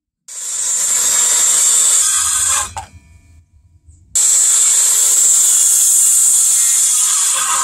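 A corded Makita circular saw cutting across a squared timber beam in two passes. The first lasts about two and a half seconds; after a pause of about a second and a half the saw starts again. These are a row of closely spaced parallel kerfs that mark out a notch to be chiselled away.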